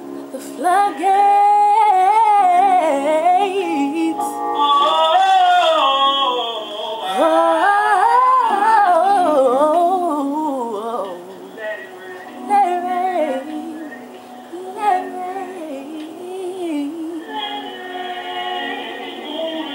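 Gospel singing: a woman's voice in long, sliding vocal runs over backing music, quieter in the second half.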